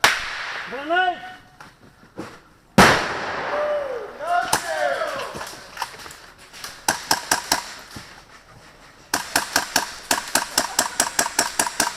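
Airsoft guns firing in rapid bursts of sharp snapping shots, with a long burst near the end, and shouting voices earlier on.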